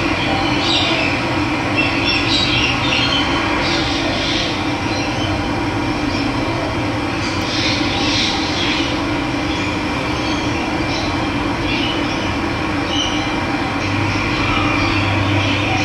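Steady rush of running water, with wild birds chirping on and off over it.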